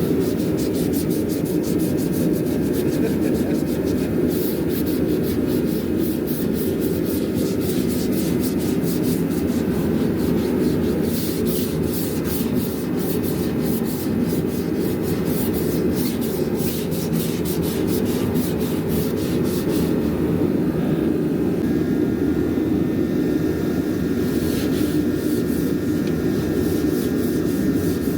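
Sandpaper rubbing on a steel car body panel: continuous sanding with a steady scratchy hiss of many quick strokes.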